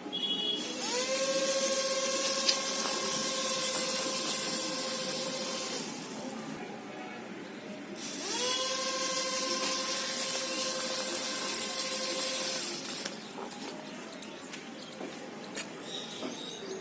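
Small DC motors of a homemade two-wheel RC car running in two bursts of about five seconds each. Each run spins up quickly to a steady whine with a hiss, then stops.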